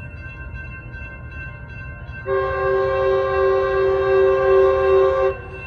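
Horn of an approaching Metrolink commuter train sounding one long, steady chord of about three seconds, starting a little over two seconds in.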